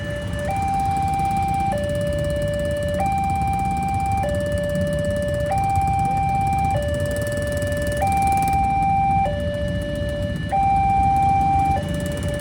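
Railway level-crossing warning siren sounding a steady two-tone hi-lo alternation, each tone held about a second and a quarter, the signal that a train is approaching and the gates are down. A low rumble runs underneath.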